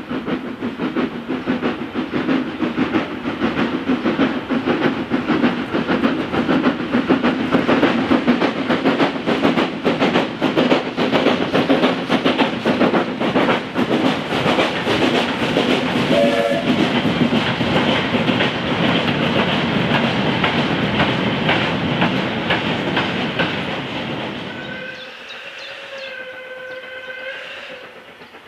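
Train of steel hopper wagons rolling past behind a saddle tank steam locomotive, the wheels clicking rapidly over the rail joints. About 25 s in it drops away and a steam locomotive's whistle sounds in the distance, held for about three seconds.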